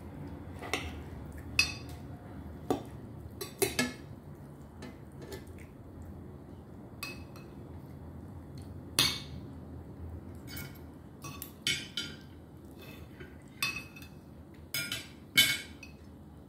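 Metal fork and knife clinking and scraping on a ceramic plate while cutting up a piece of chicken: about a dozen sharp, scattered clinks, the loudest about nine seconds in and near the end, over a faint low hum.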